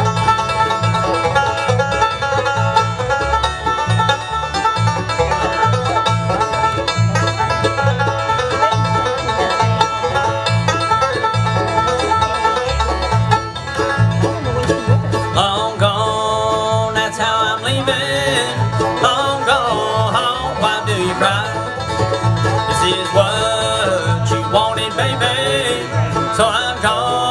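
Bluegrass band playing the instrumental introduction to a song, led by banjo over guitar, with a steady beat in the low end.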